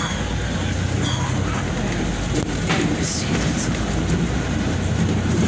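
Inside a city bus on the move: a steady low engine and road rumble, with a few brief rattles about two and a half to three seconds in.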